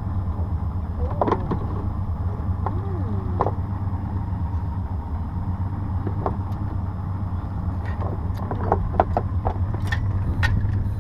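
Boat engine idling with a steady low hum. Near the end come a few light clicks and taps from hands handling fishing tackle.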